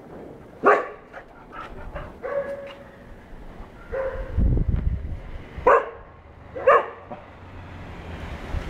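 Four-month-old golden retriever puppy barking at a cow: one sharp bark about a second in and two more a second apart near six and seven seconds. Shorter, quieter yips and brief whines come between them.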